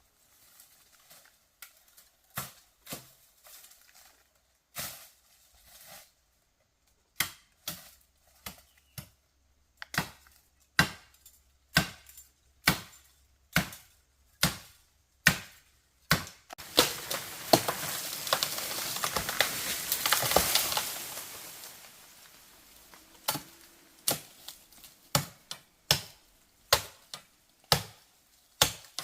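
Repeated chopping strikes, roughly one a second, with a few seconds of loud hissing noise in the middle before the chopping goes on.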